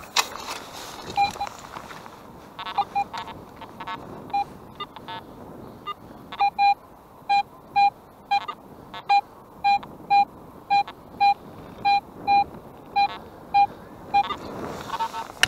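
Metal detector sounding short, repeated target beeps, about two a second, sometimes doubled, as the coil is swept back and forth over a buried metal target. The beeps are fainter and broken for the first few seconds, then steady and clear.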